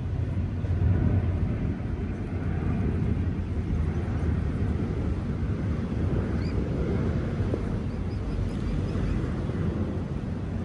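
Steady low outdoor rumble, with a few faint, short, high chirps about halfway through.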